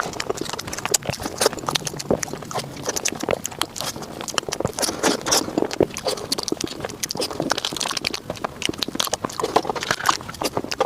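Close-miked mouth sounds of fast eating a chocolate dessert: rapid, dense chewing and lip-smacking clicks that go on without a pause.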